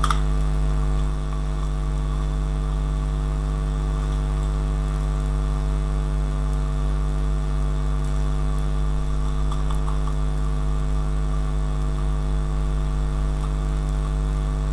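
Steady electrical mains hum with a buzz of evenly spaced overtones, picked up by the recording microphone; it does not change throughout.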